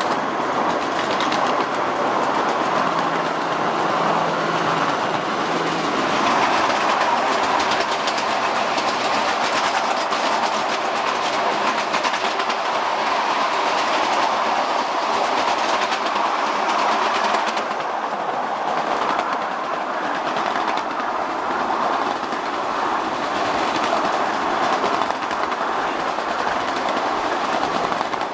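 Ride-on miniature railroad train rolling steadily along its track: the continuous rumble and clatter of small steel wheels on the rails.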